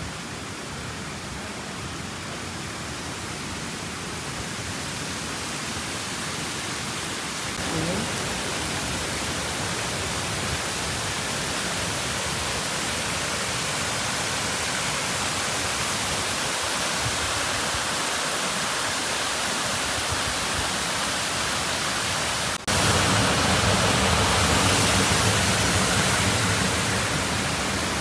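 Shiraito Falls, a broad curtain of many thin streams of spring water falling from a rock face into a pool, rushing steadily. It grows slowly louder, then jumps abruptly louder and fuller about three-quarters of the way through.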